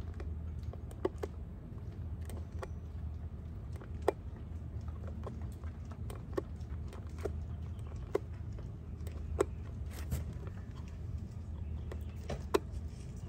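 Fingertips and fingernails pressing and picking a vinyl overlay onto a wheel center cap, giving scattered, irregular small clicks and taps over a steady low background hum.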